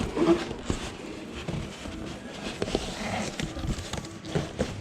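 Irregular knocks, taps and rustles from a large cardboard box and its contents being handled during unpacking.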